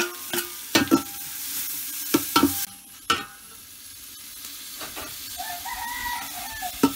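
Chopped tomato and capsicum dropped into hot oil with onions and whole spices in an aluminium pot, sizzling hard for the first few seconds and then more quietly. A steel ladle stirs the mix, scraping and clinking against the pot several times.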